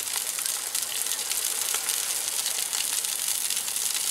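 Fluke (summer flounder) fillet frying in butter in a cast-iron skillet: a steady, crackling sizzle.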